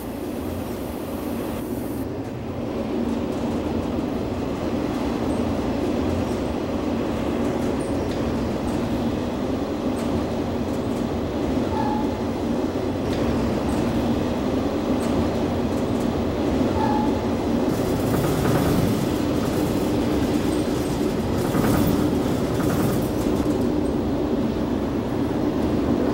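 A freight train rolling along with a steady rumble. A run of clicks from the wheels comes about two-thirds of the way through.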